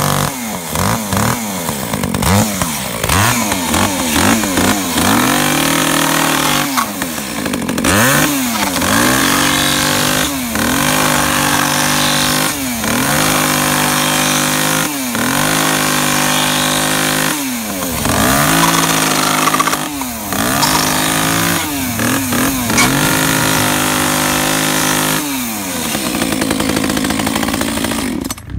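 Echo GC302 two-stroke top-handle chainsaw running and revved over and over: roughly every two seconds the engine climbs to high revs, holds, then drops back to idle. Near the end it settles to a steady idle.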